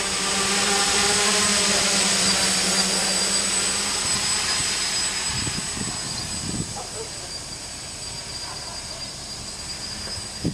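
SK S500 quadcopter's motors and propellers buzzing in flight, a steady hum with a high whine. The sound grows fainter after about four seconds as the quadcopter flies off.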